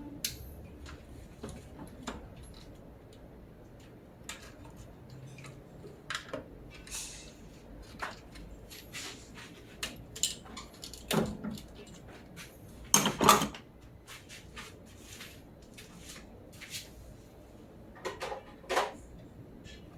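Scattered clinks and knocks of hand tools and metal engine parts being handled during engine teardown, loudest as a double knock about two-thirds of the way through.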